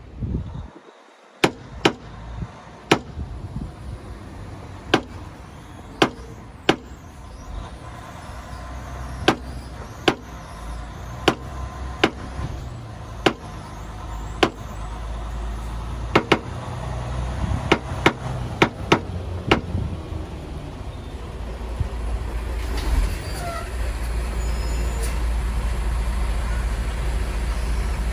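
Sharp single taps, roughly one a second and unevenly spaced: paintless dent repair tapping on the Supra's body panel, knocking down the dent. Under them runs a low rumble that grows louder over the last few seconds.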